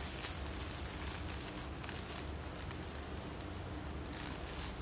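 Clear plastic packaging bag crinkling and rustling as it is handled, in irregular crackles, over a steady low hum.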